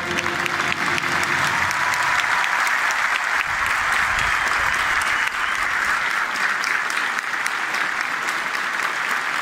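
A huge stadium crowd applauding: a dense, steady wash of clapping, with sharper individual claps from people close to the microphone on top.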